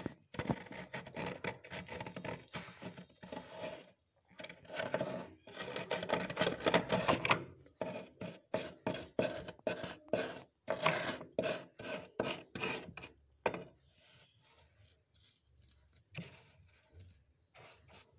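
Thick freezer frost being scraped and dug loose, a rasping scrape in repeated strokes, about two a second in the middle, growing much quieter for the last few seconds.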